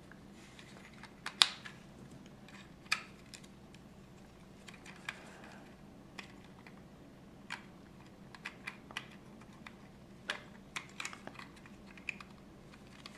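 Hard plastic clicks and taps of Lego pieces as wheels are handled and pressed onto a Lego car. The clicks come irregularly, the sharpest about a second and a half in and another at about three seconds.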